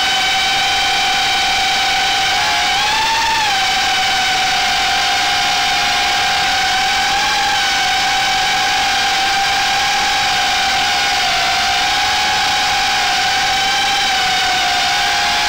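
Brushless motors and propellers of an Armattan Gecko 3 FPV quadcopter whining steadily in flight, heard up close from the quad's own camera. The pitch rises briefly about three seconds in as the throttle comes up, wavers slightly, and drops at the very end.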